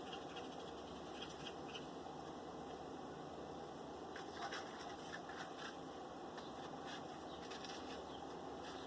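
Light scratching and scattered small clicks of twigs and kindling being handled while a wood fire is being lit, over a steady background hiss.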